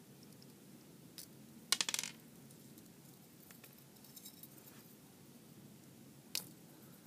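Small metal clicks and clinks from a cheap soldering iron's metal barrel and parts being handled and worked apart by hand. There is a quick rattle of clinks about two seconds in, with single clicks just before it and near the end.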